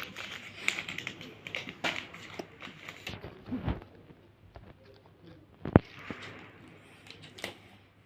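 Paper being handled and folded: irregular crackles and small taps, with one sharp knock about six seconds in.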